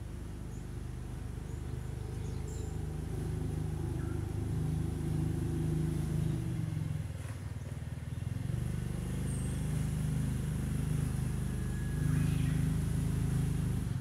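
A low, steady motor hum with several steady pitches in it, growing slightly louder and easing off briefly about halfway; a few faint bird chirps sound above it.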